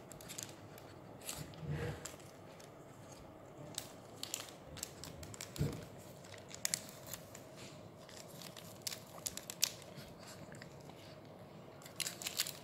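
Scissors snipping and handling a foil medicine packet, with irregular sharp clicks and crinkles of the packaging.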